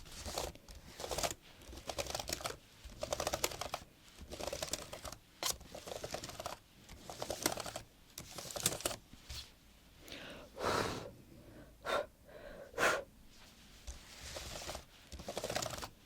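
Laptop keyboard typing: quick runs of key taps in bursts of about a second, with short pauses between them and a few single louder keystrokes near the end.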